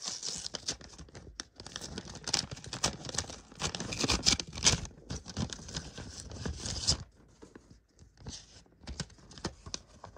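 A bag being opened and its contents handled: dense rustling full of sharp crackles, thinning to a few light clicks about seven seconds in.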